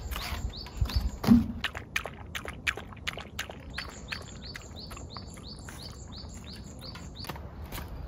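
A small white dog lapping water from a bowl, a regular run of quick laps about three a second, after a thump about a second in.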